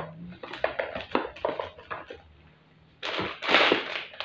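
Light taps and knocks of cardboard product boxes being handled and set down, then, about three seconds in, the crinkling rustle of a plastic bag being picked up.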